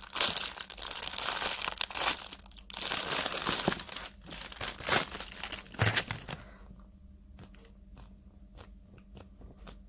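Plastic packaging crinkling and rustling as it is handled and opened, in dense crackly bursts for about six seconds, then dying down to faint occasional ticks.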